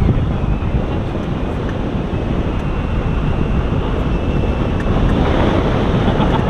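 Loud, steady wind rushing over the microphone of a camera on a tandem hang glider in flight.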